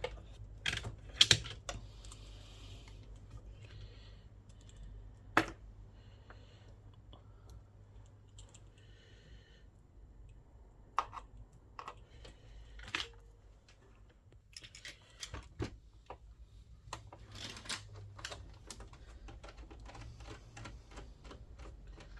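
Irregular clicks and taps from a screwdriver, screws and plastic and metal parts being handled while taking apart a PlayStation 3's power supply and disc drive mounts. The loudest clicks come about a second in and at about five seconds.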